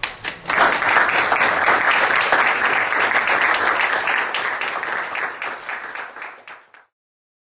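Audience applauding: dense clapping that builds within the first half second, holds steady, then tapers and stops shortly before the end.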